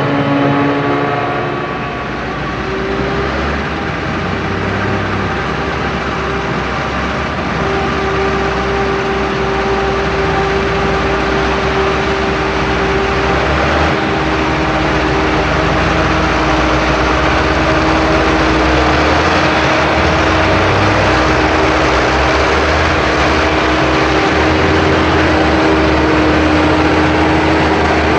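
Heavy diesel farm machinery running steadily during a maize silage harvest: the engines of a forage harvester and tractors with trailers, with a few held tones that shift in pitch now and then.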